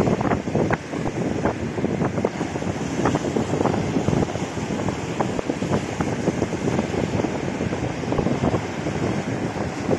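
Strong wind blowing on the microphone in uneven gusts, over the continuous wash of waves breaking on a rough, windswept sea.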